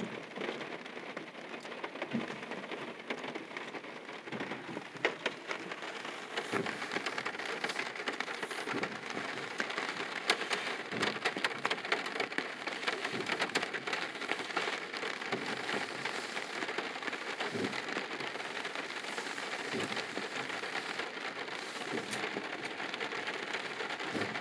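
Rain hitting the roof and windshield of a car, heard from inside: a steady patter with sharper single drop hits, and a soft low thump about every two seconds.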